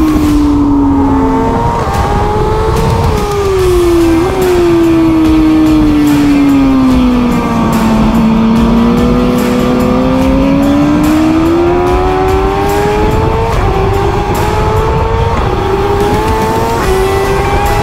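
Racing superbike engine heard from an onboard camera. The revs fall steadily for about eight seconds, with quick upward blips as it slows and downshifts for a corner, then climb again as it accelerates out, with short dips at the upshifts near the end.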